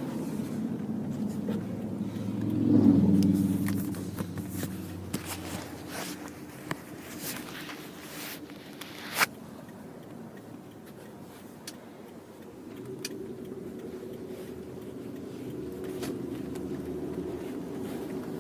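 Car running with a steady low hum that swells louder about three seconds in. Scattered light clicks and knocks are heard, with one sharp click about nine seconds in.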